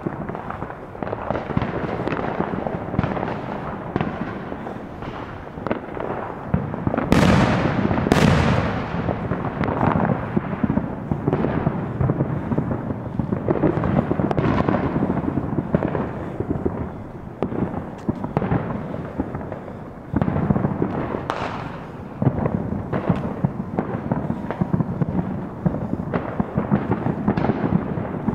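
Many fireworks going off all around the neighbourhood at once, making a continuous din of overlapping bangs, pops and crackles. Two louder bangs stand out about seven and eight seconds in.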